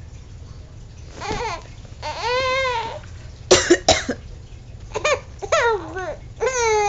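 An adult coughs sharply two or three times in quick succession about halfway through, and a baby answers with high-pitched squealing laughs, several short ones before and after the coughs.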